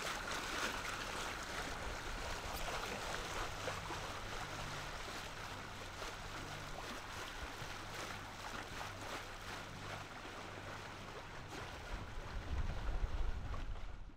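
Water rushing and splashing along the hull of a Hanse 418 sailing yacht under way as the bow wave peels off, with a faint low hum beneath.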